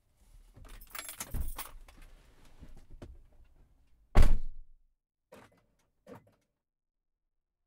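Rustling and handling of objects, then a single loud thunk a little past the middle, followed by two light clicks.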